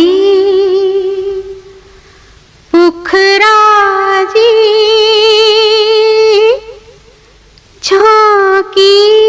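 A woman's solo voice singing long held notes with vibrato in a Hindi film song, with no audible accompaniment. The notes come in three phrases, with short pauses about two seconds in and about seven seconds in.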